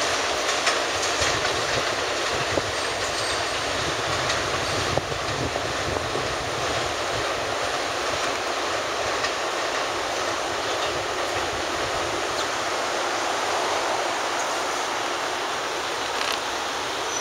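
R160 subway train pulling away along the elevated track, its wheels clicking over rail joints a few times in the first seconds, over a steady rushing noise that holds fairly even throughout.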